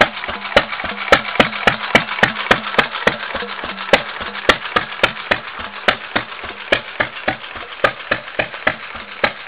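Antique Stover 4 hp stationary gas engine running at a steady throttle, its exhaust cracking in a regular beat of roughly two to three sharp pops a second over a steady low hum. Pretty loud.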